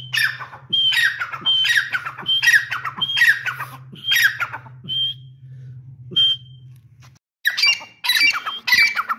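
Grey francolin calling: a repeated series of harsh notes, each a short high whistle followed by a grating falling stroke, about one and a half a second. After a short break about seven seconds in, a faster, denser run of calls follows.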